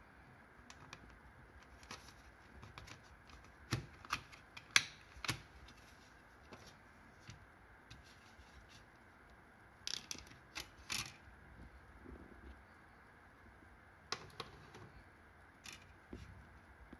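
Plastic CD jewel case being handled and opened and the disc taken out: scattered light clicks and clacks of hard plastic, in bursts about four seconds in, about ten seconds in, and again near the end.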